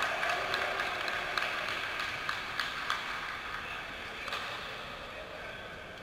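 Players' voices and shouts echoing in a large gymnasium, dying down steadily, with scattered sharp taps and knocks from the court.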